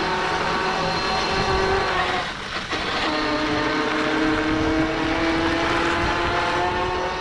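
Electric auto-rickshaw's motor whining steadily as it drives over sand, over a steady rushing noise. The whine dips and settles at a lower pitch about two and a half seconds in.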